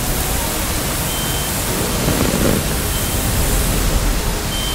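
Steady roar of a building fire burning inside a room, swelling briefly about two seconds in. Faint short high beeps repeat every second or so over it.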